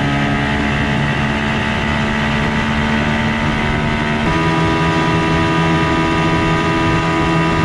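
Outboard motor running steadily, pushing a boat on a test drive; its engine note changes abruptly a little over halfway through.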